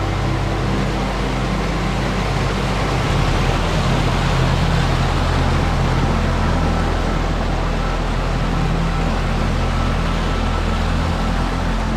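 Ambient drone music: low held notes that change about three seconds in and again near the end, over a steady rushing hiss.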